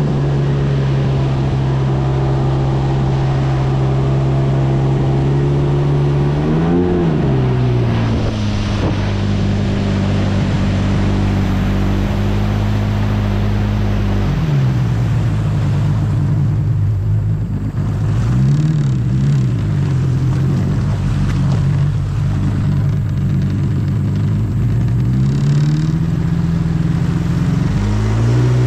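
Small boat's engine running at low cruising speed. Its pitch rises and falls briefly about seven seconds in, drops lower as it throttles back around halfway, and climbs again near the end.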